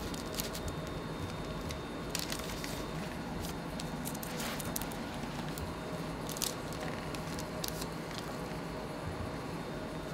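Bakery food-preparation handling sounds over a steady kitchen hum: scattered small clicks and taps, with a soft swish about four and a half seconds in.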